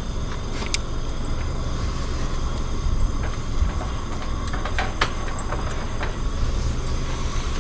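Wind buffeting the microphone in a steady low rumble, with a few light clicks in between.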